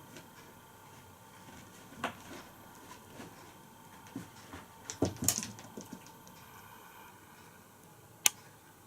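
A few scattered light taps and clicks: a cluster of them about five seconds in, and a single sharp click near the end.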